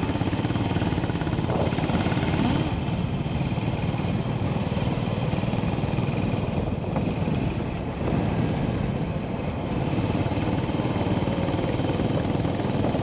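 Honda GB350's air-cooled single-cylinder engine running at a steady cruise, mixed with wind rushing over the microphone. The level dips briefly about eight seconds in.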